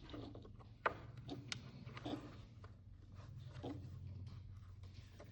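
Faint handling noise of small wire work with needle-nose pliers and a butt-splice connector: scattered light clicks and rustles, one sharper click about a second in, over a steady low hum.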